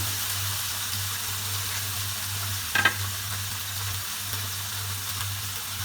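Basa fish fillets sizzling steadily in hot oil in a frying pan, with one short knock about three seconds in.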